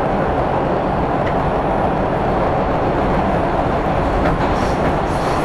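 New York City subway train (a 5 express) running between stations, heard from inside the car: a steady, even rumble of wheels and motors on the track, with a few faint clicks near the end.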